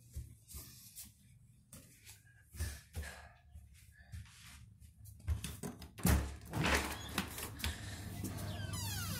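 Soft footsteps and phone handling, then a sliding door being opened, with a run of louder knocks and thuds about five to seven seconds in. Near the end, outdoor ambience comes in along with high, sliding squeaks.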